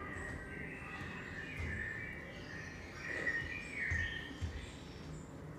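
Birds chirping and calling, with short falling whistles, played back on the studio sound system, over a low rumble and a few soft thuds of dancers moving on the floor.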